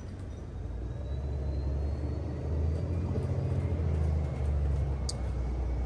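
City bus engine and drivetrain rumbling, heard from inside the passenger cabin while the bus drives, growing louder over the first few seconds, with a faint rising whine and one short tick near the end.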